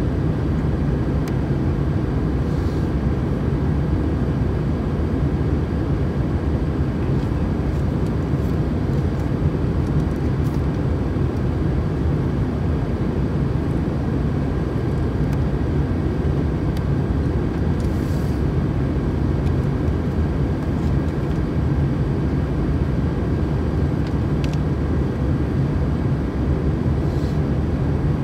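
Steady cabin drone of an Airbus A320 airliner in flight: even, low engine and airflow noise with a faint steady whine on top.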